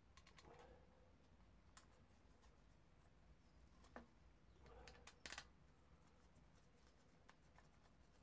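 Near silence with faint clicks and rustling from gloved hands fitting a rubber inlet boot onto a motorcycle cylinder head, with a couple of small taps about five seconds in.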